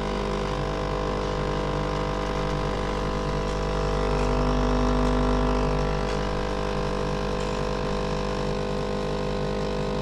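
Breville Barista Pro espresso machine pulling a shot, its vibratory pump running with a steady, dense hum that swells a little about four to six seconds in.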